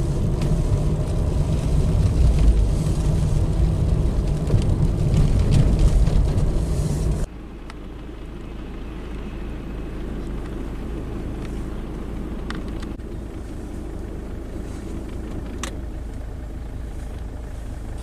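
Engine of a heavy earthmoving machine running loudly and steadily for about seven seconds. It cuts off suddenly, and a quieter, steady low rumble follows.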